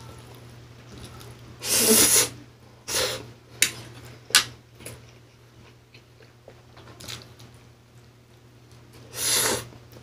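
Pancit canton instant noodles slurped into the mouth: loud noisy slurps about two seconds in, again about a second later, and once near the end, with a couple of sharp clicks between, over a low steady hum.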